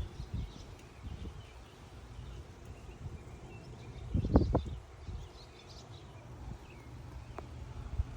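Gusty wind buffeting the microphone as a low rumble that swells and fades, with one strong gust about four seconds in. Faint bird chirps sound behind it.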